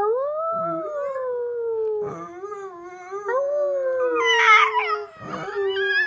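Chihuahua howling: a run of long, drawn-out howls, each sliding slowly down in pitch, with short breaks between them. A brief, rougher, higher cry rises over the howl about four and a half seconds in.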